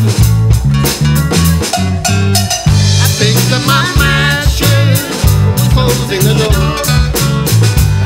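Live folk-rock band playing: drum kit keeping a steady beat under a moving bass line and guitars, with a wavering lead melody line on top.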